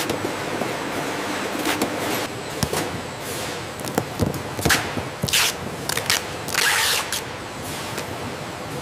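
Packing tape being pulled off a handheld tape gun and pressed onto cardboard boxes. It makes several short rips, most between about four and seven seconds in, over a steady factory machinery hum.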